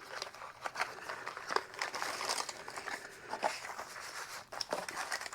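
Plastic packaging crinkling, with irregular small clicks and rustles, as a box of accessories is opened and handled.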